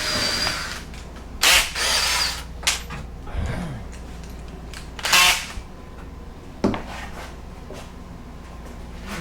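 Power drill driving a bit into wood in short trigger bursts: several brief spurts that start and stop, the loudest about a second and a half in and again about five seconds in.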